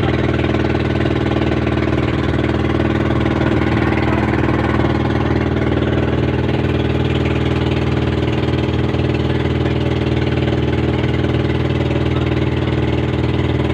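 Outrigger boat's (bangka's) engine running at a steady, unchanging pace, a constant low drone.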